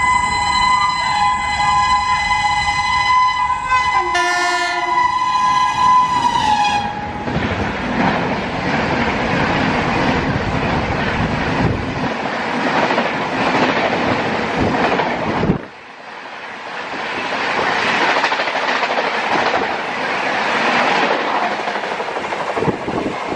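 Passenger train locomotive horn blaring a steady chord, with a lower second note sounding about four seconds in, then dropping in pitch as it passes. This gives way to the loud rush and rhythmic wheel clatter of LHB coaches going by at high speed. The rush cuts off abruptly about two-thirds through and swells up again.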